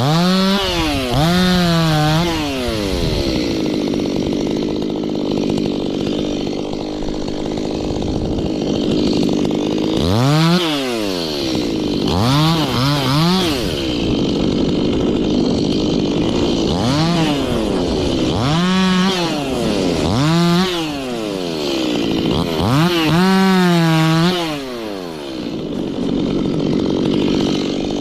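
Stihl two-stroke chainsaw revving up and dropping back again and again, about six bursts of throttle, with steadier running between them.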